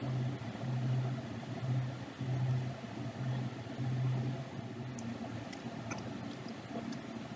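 Steady low machine hum. A deeper throb swells and fades unevenly through the first four seconds or so, then evens out, with a few faint ticks near the end.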